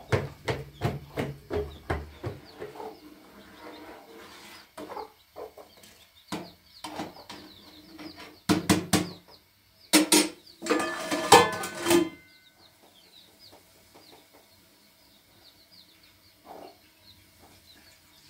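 Wooden plunger churning butter in a plastic bottle of milk: rhythmic sloshing thuds, about three a second, that stop after a couple of seconds. Later come scattered faint chirps and a louder, noisy burst of sound about halfway through.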